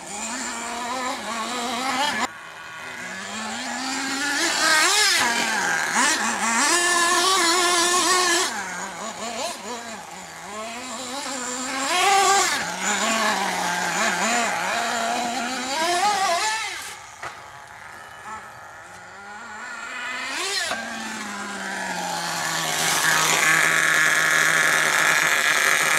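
HPI Firestorm RC truck's nitro two-stroke glow engine revving up and down over and over as the truck is driven. It goes quieter for a few seconds about two-thirds through, then drops to a steady, lower note near the end.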